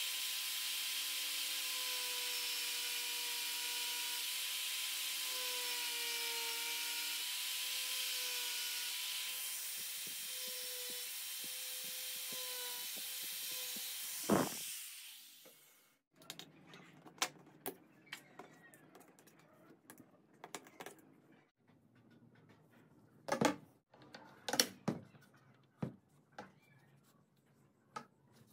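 Handheld angle grinder with a thin cutting disc running with a steady whine, cutting a slot into a PVC pipe; about fourteen seconds in it is switched off with a click and winds down. After that come scattered light knocks and taps as the pipe and wooden stock are handled.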